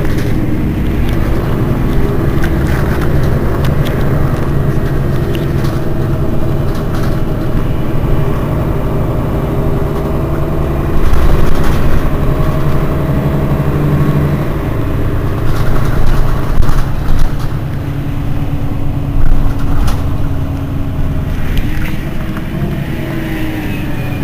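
Mercedes-Benz Citaro city bus running, a steady low engine drone with slowly shifting tones. A few brief knocks and louder surges come through the middle, and the engine's pitch falls near the end.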